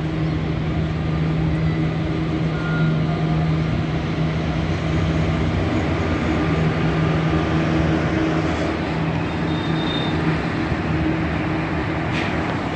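Locomotive and a long train of covered freight wagons passing below, a steady rumble of wheels on rails with a constant low hum.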